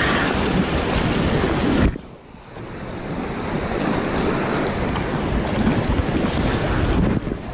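Water rushing over a concrete spillway, mixed with wind buffeting the microphone. The noise drops away suddenly about two seconds in, then builds back over the next second.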